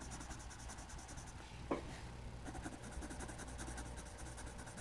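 Pink colouring pencil rubbing faintly on drawing-pad paper in small circular strokes, with one brief click about a second and a half in.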